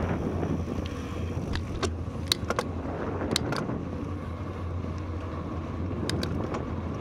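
A bicycle rolling along a road: a steady rumble of tyre and wind noise, with a few short sharp clicks and rattles from the bike around two to three and a half seconds in and again near six seconds.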